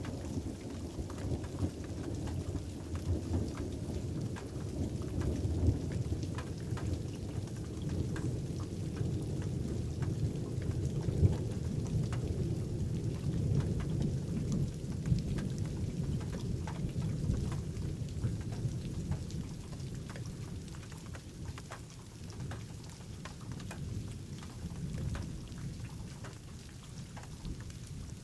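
Steady rain with scattered sharp drop ticks, over a low rumble of distant thunder that builds through the middle and dies down near the end.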